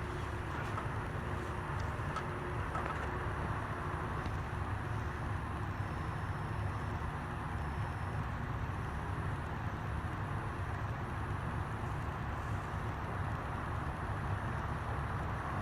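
Antique Westinghouse Baby Sidewinder ceiling fan motor running steadily after being switched on, a constant hum and whir. The bearing noise in it is something the owner suspected needed attention but judges not that bad.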